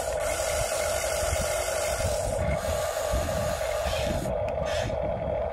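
Huina 1593 remote-control excavator's electric motors and gearing whining steadily as the boom and bucket move, with a rasping mechanical noise that changes about halfway through and stops shortly before the end.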